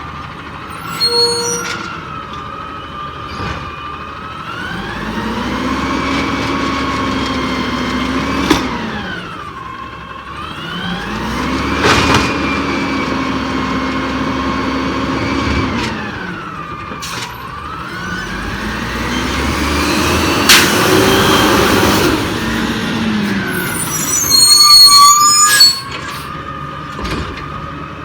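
Peterbilt 320 garbage truck's engine revving up, holding for a few seconds and dropping back, about four times over. Sharp metallic clanks and rattles come about a second in and again, loudest, near the end.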